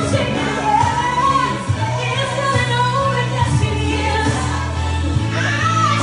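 A woman singing a gospel song live into a microphone, amplified through a PA over a backing track with steady low bass notes.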